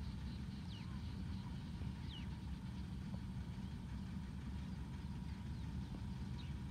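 Outdoor ambience: a steady low rumble, with a bird's short descending call heard three times.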